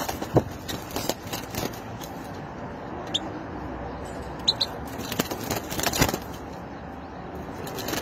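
European goldfinch flapping and knocking against the wire bars of its wooden cage, with two short high chirps in the middle, over a steady background of city traffic.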